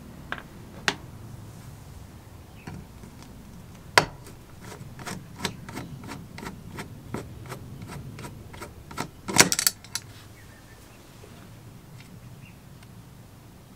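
Screwdriver turning a screw out of the metal base plate of a GEC telephone extension bell: a few sharp clicks, then a run of small, regular clicks about three a second as it turns. A louder metallic clatter of several quick hits comes near the end.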